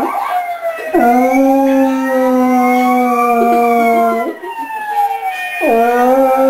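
A dog howling in long, level, drawn-out howls: one lasting about three seconds, then a pause, and a second howl starting near the end. A fainter wail that slowly rises and falls in pitch runs behind the howls.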